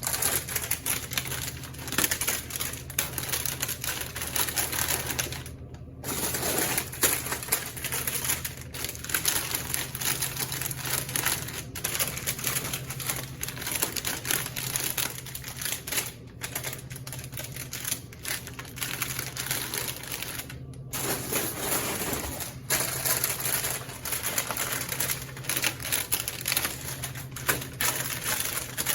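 Packaged laundry-supply stock being handled: rapid, irregular clicking and crinkling of plastic packaging, with short pauses about 6 and 21 seconds in, over a low steady hum.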